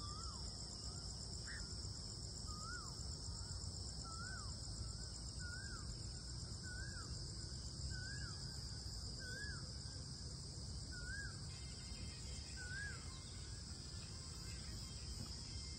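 A bird repeats one short clear note that rises and then falls, about once every second and a half, over a steady high-pitched insect drone.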